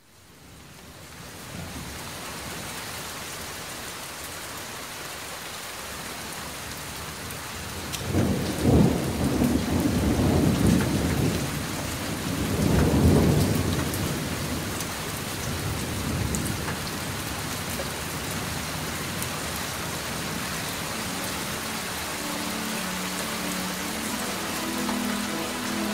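Rain and thunder opening a music track: a steady rain hiss fading in, two rolls of thunder about eight and thirteen seconds in, and sustained musical notes coming in near the end.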